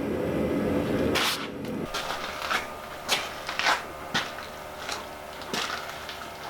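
A forge running with a steady roar that cuts off about two seconds in, followed by scattered light metallic clicks and knocks of tongs and steel being handled as the hammer head is heated for hardening.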